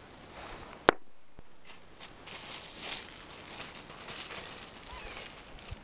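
Rustling and light clicks of hands handling small parts, with one sharp click about a second in.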